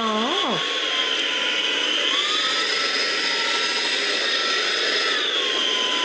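Ultenic U11 Pro cordless stick vacuum running with a steady high whine. About two seconds in, its motor pitch rises and holds for about three seconds, then drops back near the end: the automatic mode stepping up suction power.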